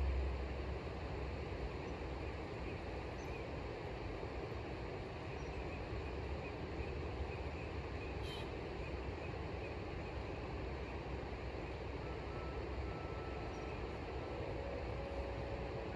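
Steady outdoor background noise: an even hiss over a low, unsteady rumble, with faint steady tones creeping in near the end.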